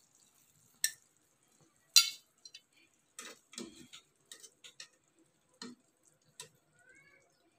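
Utensils clinking against a frying pan and a ceramic plate as cooked chicken pieces are lifted out and served. Two sharp clinks come about a second apart near the start, the second the loudest, followed by a run of lighter knocks.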